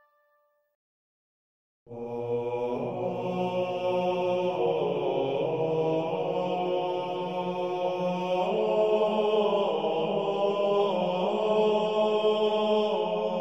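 Silence for about two seconds, then chanting begins: low voices singing long held notes that move slowly from pitch to pitch, in the manner of plainchant.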